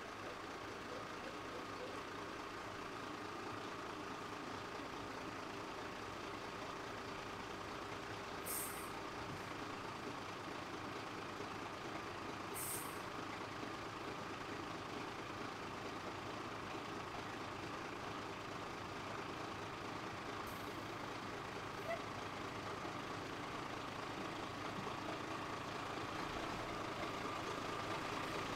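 Dennis Sabre fire engine's diesel engine running at idle as the truck creeps slowly forward, a steady hum getting slightly louder near the end. A few short hisses of air from its air brakes come through, about three times.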